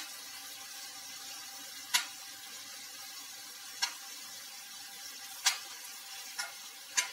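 Metal spatula knocking and scraping against a metal kadhai while stirring diced potatoes, onions and peanuts, five sharp knocks about a second or two apart, over a faint steady sizzle of frying.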